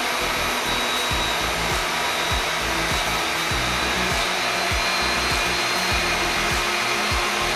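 SKIL TS6307 table saw with a 60-tooth blade ripping Baltic birch plywood: a steady run of motor and cutting noise with a faint high whine. A 1-horsepower dust collector runs along with it.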